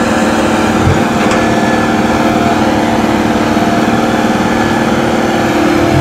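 Diesel engine of a Kobelco SK120 crawler excavator running steadily, with a dull knock about a second in.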